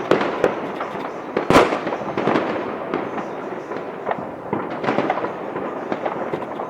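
Fireworks going off: a dense, continuous run of overlapping bangs and crackles, with one loud bang about one and a half seconds in.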